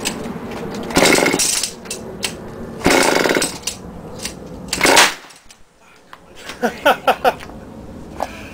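Small two-stroke engine fed hydrogen-oxygen (HHO) gas from an electrolysis cell, giving three loud surges about two seconds apart; the steady running sound cuts out about five seconds in. A few short, sharp sounds follow a little later.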